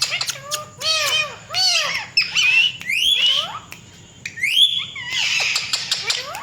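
Indian ringneck parakeets calling: a fast run of chirps, squawks and whistled calls that arch or glide up and down in pitch, mixed with sharp clicks, with a short lull near the middle.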